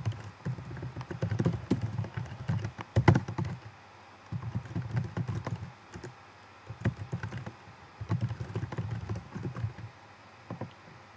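Typing on a computer keyboard: quick runs of keystrokes broken by short pauses about four, six and ten seconds in.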